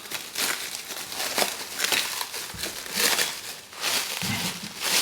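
Packing material crinkling and rustling in irregular bursts as it is handled and pulled away.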